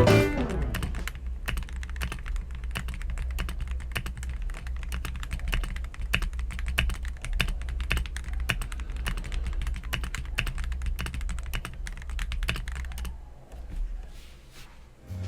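Fast typing on an MW65 mechanical keyboard fitted with Everglide switches: a rapid, irregular run of keystroke clacks that thins out to a few last presses near the end.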